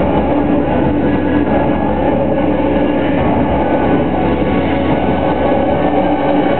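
Loud live music from a stage band: held keyboard chords over low bass notes that change every second or so.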